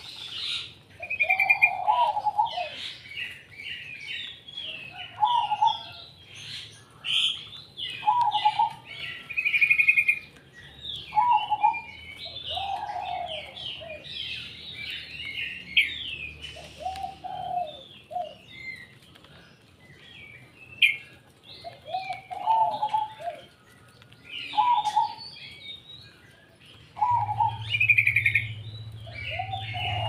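A chorus of caged songbirds chirping and singing over one another, with a zebra dove's lower cooing phrase coming back every two to three seconds.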